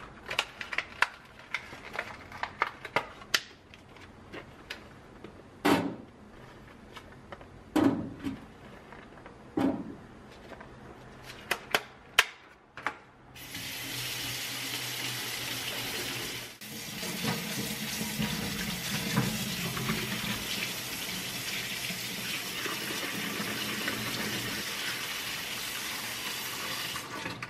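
Sharp clicks and knocks of a plastic berry punnet and kitchen strainers being handled at a stainless steel sink. About halfway through, the kitchen tap comes on and runs steadily, water pouring over blueberries in a mesh sieve and then over cherry tomatoes held in a hand, with a brief break in between.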